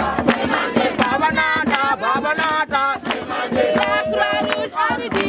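A group of voices singing and chanting together, over sharp rhythmic beats about three times a second.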